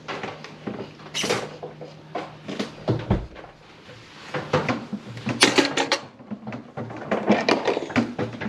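Tools and parts being handled during plumbing work: a run of irregular knocks, clicks and scrapes, with a low thump about three seconds in and the busiest clatter about five and a half seconds in.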